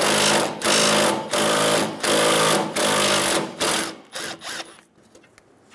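Cordless impact wrench spinning a 10 mm socket on an extension to back out a bumper bolt, run in about six half-second bursts with short pauses, then two quick blips before it stops about three-quarters of the way through.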